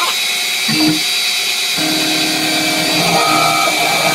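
CNC milling machine spindle running with a steady high whine while machining a wooden test blank for a model engine crankshaft. About two seconds in a lower steady hum joins it, and a brief higher tone sounds a little after three seconds.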